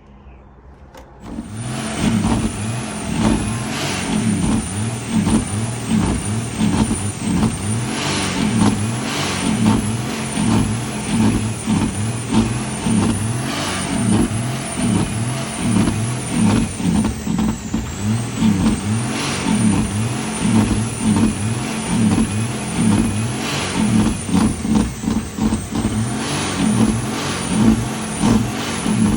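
Heavy truck's diesel engine running, coming in suddenly about a second in and holding steady, with a thin high whine above it.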